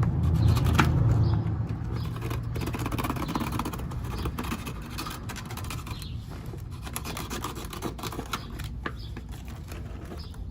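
Knife cutting and scraping through the spider, the fabric suspension, of a Rockford Fosgate T2 13-inch subwoofer, in irregular scratchy strokes and clicks. A low rumble in the first second or so fades out.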